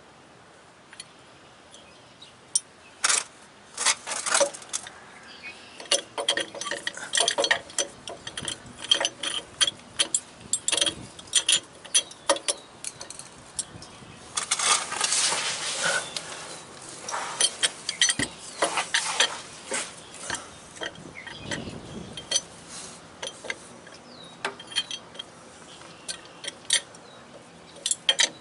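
Steel pipe wrench clinking and scraping against the gland of a hydraulic cylinder as it is fitted and adjusted to grip it: a scatter of sharp metal clicks, with a longer scraping noise about halfway through.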